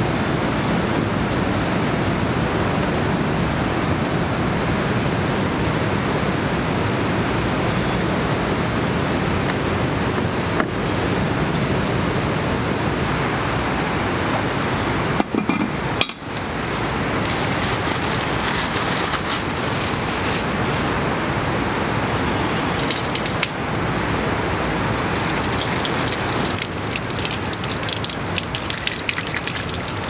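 A steady rushing noise, then from about halfway water running from an outdoor tap and splashing over hands rubbing beneath it, with light clinks and drips.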